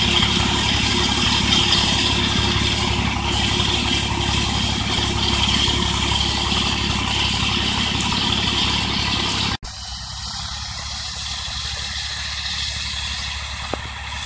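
IMT 549 DV tractor's diesel engine running steadily as it pulls a Vicon 165 rotary mower through tall grass, with a high steady whine over the engine. About two-thirds of the way through, the sound cuts abruptly to a quieter, more distant tractor engine.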